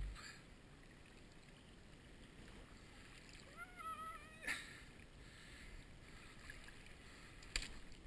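Faint water lapping and sloshing against a stony shoreline. About three and a half seconds in comes a short wavering, whistle-like call, followed by a sharp click.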